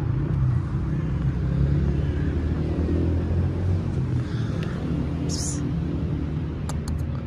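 Steady low outdoor rumble, with a short high hiss about five seconds in and a few light clicks near the end.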